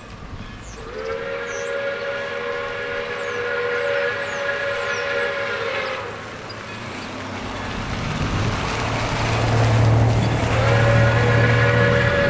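Steam whistle of Pere Marquette 1225, a Lima 2-8-4 steam locomotive, sounding its grade-crossing signal. One long blast runs about five seconds, and a second long blast begins near the end. A motor vehicle passes close by in between.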